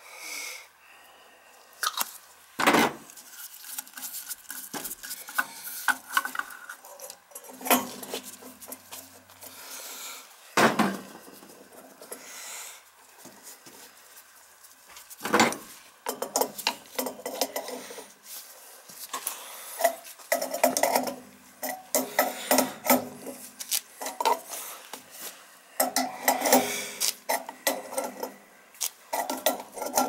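Metal clinks and knocks of an adjustable wrench on a boiler pressure gauge and its fitting as the gauge is threaded in and tightened. Three louder knocks come in the first half, then a long run of quick clinking.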